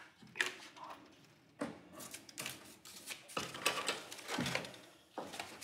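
Handling noises: irregular rustling and small clicks and knocks of objects being picked up and put down.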